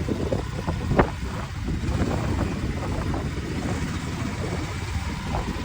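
Motorboat engine running steadily under way, a low rumble, with one sharp knock about a second in.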